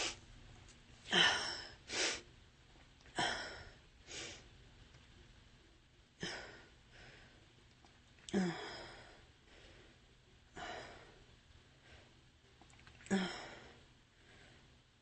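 A woman's soft, breathy exhales close to the microphone: about eight short ones, one to two and a half seconds apart, a couple with a faint voiced catch at the start.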